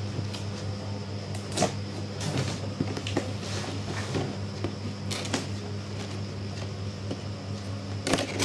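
Cardboard box being handled and opened: scattered scrapes, taps and rustles of cardboard, with a louder cluster near the end, over a steady low hum.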